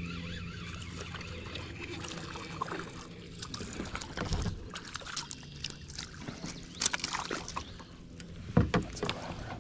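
Scattered knocks and clicks against a fishing kayak with light water sloshing, as a fish is landed and handled; a louder thump comes near the end.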